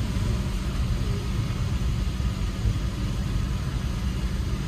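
Suzuki pickup's engine idling while stopped, heard from inside the cab: a steady low rumble.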